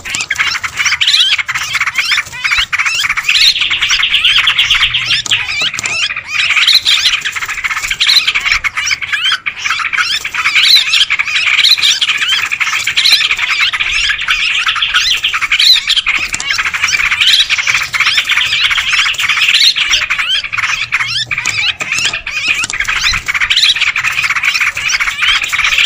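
A noisy flock of yellow-vented bulbuls chattering and calling without a break, many birds' short notes overlapping, with louder rising-and-falling calls every second or two. It is a lure call recording used to draw in wild yellow-vented bulbuls.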